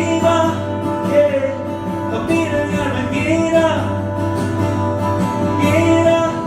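Live concert music: a vocalist singing over the song's accompaniment, loud and continuous.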